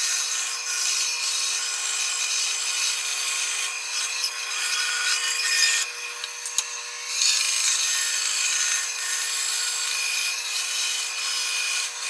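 Bandsaw running and cutting a curve through a wooden board, with a steady motor hum under the cutting noise. The cutting eases off for about a second partway through, then picks up again.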